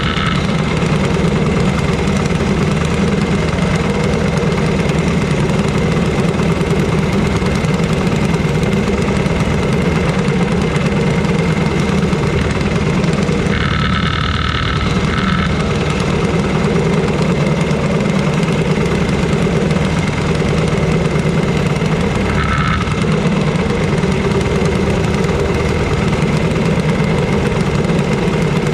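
Racing kart engines idling steadily while the karts sit in line, a loud even drone. A short higher-pitched sound cuts in twice, about halfway through and again later.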